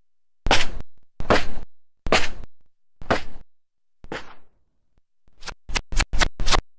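Sound effects played back in an audio editor while being placed against an animation: four short effects about a second apart, each starting sharply and fading out, a softer one a second later, then five quicker ones close together near the end.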